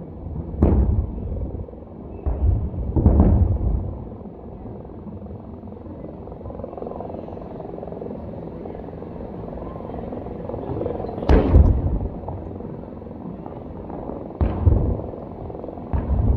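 Fireworks bursting overhead: about six sudden deep booms with rumbling tails, three in the first few seconds and three more in the second half, the loudest a little past the middle, over a steady low background rumble.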